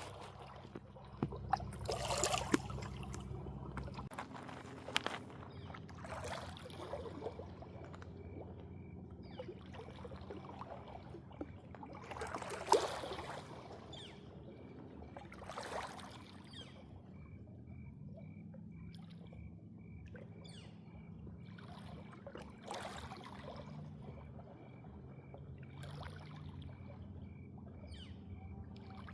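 Water splashing and sloshing in irregular bursts every second or few, over a steady low hum. A faint high chirp repeats evenly through the second half.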